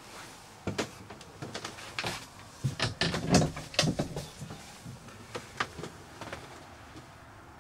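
Irregular knocks and clunks of wooden cabin doors and woodwork being handled in a small yacht cabin. They come thickest in the first half, with a few scattered knocks later.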